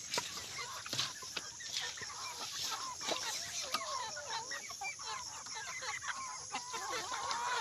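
A flock of chickens clucking, many short calls overlapping and growing busier after the first few seconds, with a few sharp knocks among them. The birds are hungry and crowding for food.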